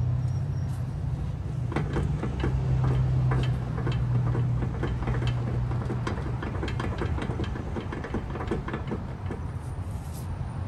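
Ford Flex front suspension clunking and clicking as the wheel is rocked by hand: a quick run of sharp knocks from about two seconds in, fading out near the end. This is the play of a loose lower ball joint nut and a loose sway link. A steady low hum runs underneath.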